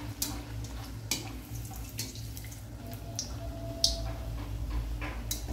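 Oil bubbling and sizzling around a rice-flour vada as it deep-fries in a steel kadai. A few sharp clicks of a steel slotted spoon against the pan come as oil is splashed over the vada.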